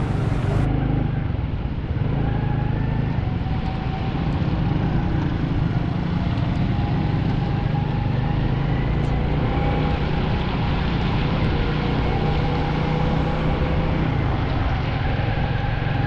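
Motorcycle being ridden on a rain-wet road: its engine running steadily under a constant noise of tyres on the wet surface and wind.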